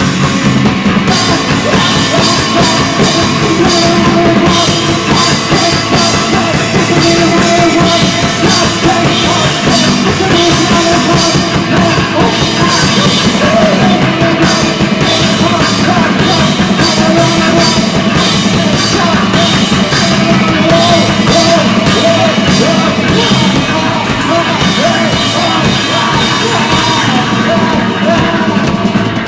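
Loud rock song with a full drum kit, playing without a break.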